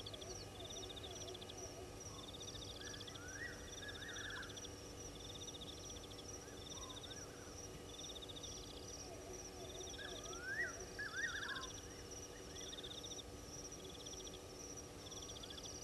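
Night chorus of insects: a steady high cricket-like trill with a pulsed chirp repeating every second or two. Clusters of short rising calls from other small night creatures come and go, most strongly about ten to eleven seconds in.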